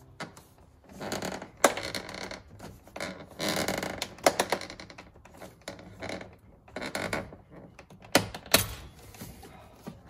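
Hands working the plastic defroster vent grille and dash-top trim of a 1995 Honda Civic: irregular spells of plastic scraping and rubbing, with sharp clicks about a second and a half in, around four seconds in, and twice close together near the end.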